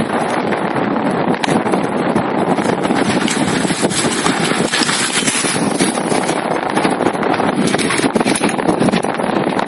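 Strong wind buffeting the microphone in a loud, steady, fluttering rush.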